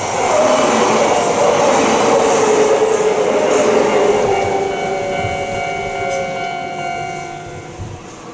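Kintetsu train passing over a level crossing: the noise swells in the first second, then fades, with a falling tone as it goes by. Steady electronic warning tones of the crossing run underneath and stop near the end.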